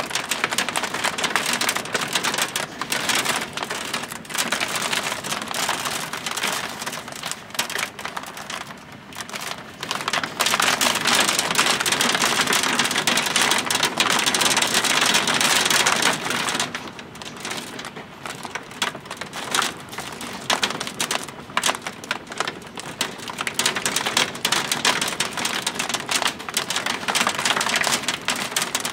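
Hail and heavy rain pelting down: a dense clatter of many small hits over a steady rushing noise. It grows louder for several seconds in the middle, then eases.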